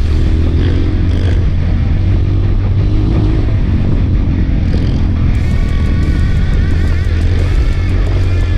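Trail motorcycle engine running under background music; the music's wavering melody comes forward about five seconds in.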